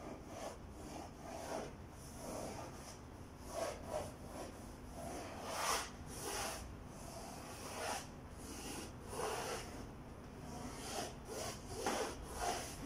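Paintbrush scrubbing and dabbing acrylic paint onto a canvas in short, irregular strokes.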